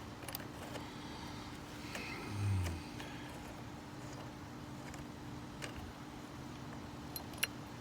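Steady outdoor background rumble with a faint constant hum, broken by a few light clicks and taps of hand work at the truck's battery, and a short low hum about two and a half seconds in.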